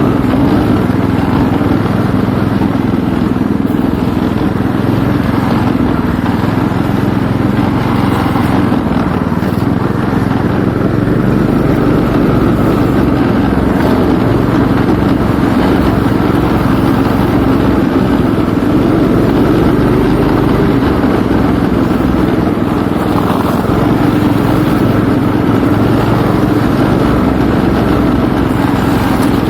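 A motor vehicle's engine running steadily, loud and unchanging.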